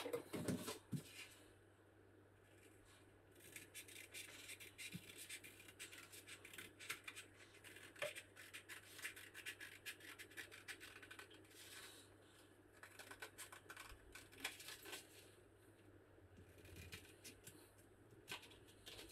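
Scissors cutting through thin white card: faint runs of quick snips and crunches in bursts, with short pauses between them.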